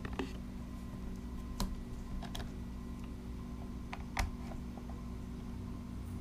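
A few scattered light clicks and taps from a screwdriver and the drone's plastic shell being handled during disassembly, over a steady low hum.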